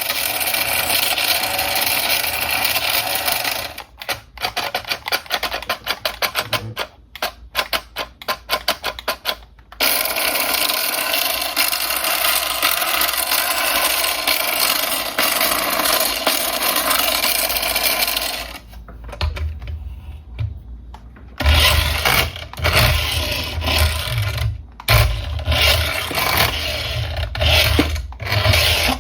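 Small electric motor and plastic gearing of a toy RC car whirring. The whirring breaks into quick stop-start pulses for a few seconds, runs steadily again, and near the end comes with heavy knocks and thumps.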